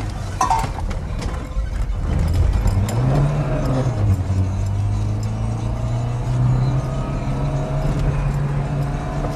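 Old car's engine running under way, heard from inside the cabin. The revs climb and then fall back about four seconds in with a gear change on the column shift, then hold steady.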